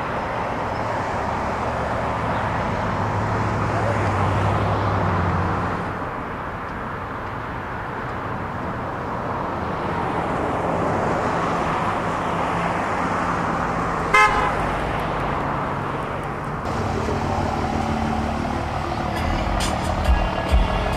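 Steady road and engine noise inside a moving car, swelling and easing slowly, with one short horn beep about two-thirds of the way through. A few clicks and low thumps come near the end.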